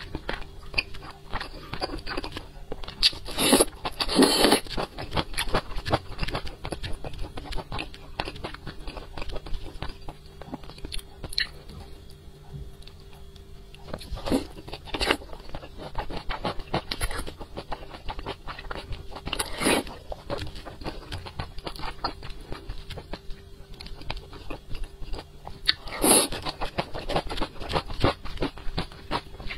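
A person chewing and biting braised pork belly, with a run of small mouth clicks throughout and louder bites a few seconds in, about halfway through, and near the end.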